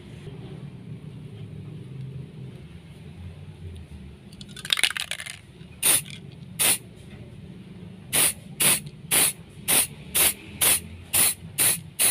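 Aerosol spray-paint can spraying the black handle of a small nail-made knife. There is one longer hiss about five seconds in, then a run of short puffs at about two a second.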